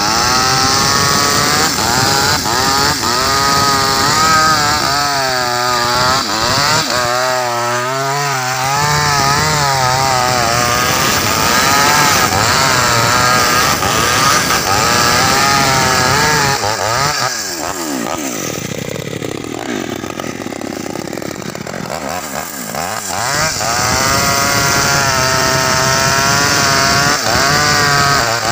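Maestro CS6500L two-stroke chainsaw cutting through a log at high revs, its pitch wavering as the chain works under load. About two-thirds of the way in the revs fall away to a lower, unsteady running, then climb back to full throttle as the bar goes into a new cut.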